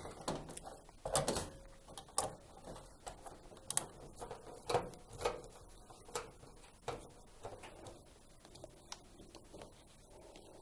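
Irregular light clicks, knocks and metal scrapes as a tumble dryer's sheet-metal heater box is positioned on the back panel and screwed in with a hand screwdriver, the clicks thinning out towards the end.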